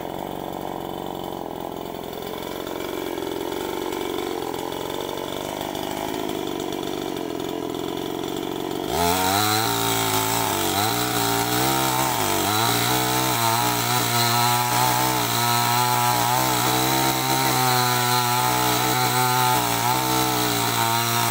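Chainsaw running at lower speed, then about nine seconds in going loud and steady at full throttle as it cuts into a large tree trunk, its pitch dipping briefly as the chain bites into the wood.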